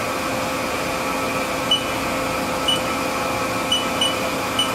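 Haas Super MiniMill CNC spindle running steadily at about 1,000 RPM: an even machine hum with a few held tones. From about a second and a half in there are five short, high electronic beeps, typical of key presses on the Haas control panel.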